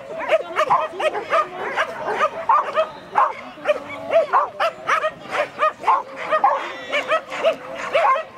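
A border collie-type dog barking in excited, high yips about two to three times a second, without a break, while it runs an agility course.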